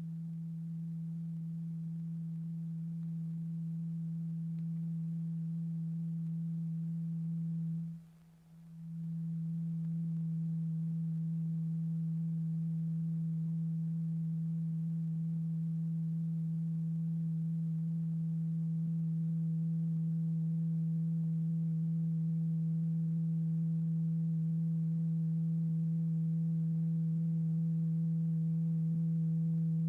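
Steady low sine-like tone with faint higher overtones, the continuous wave vibrating a large rubber diaphragm strewn with lycopodium powder for a cymatics experiment. It drops out briefly about eight seconds in, then returns and grows slowly louder.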